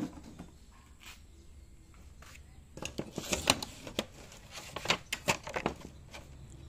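Rustling and clicking handling noise, a dense run of sharp crackles starting about three seconds in and lasting about three seconds, over a low steady hum.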